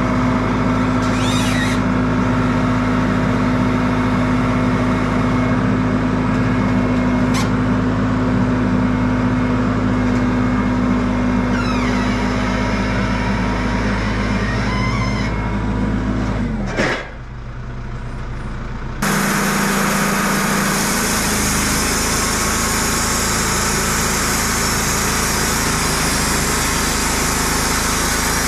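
Wood-Mizer LT15 Wide portable band sawmill's engine running steadily. About 17 seconds in its pitch drops sharply and the sound falls quieter for a couple of seconds, then loud engine noise comes back suddenly.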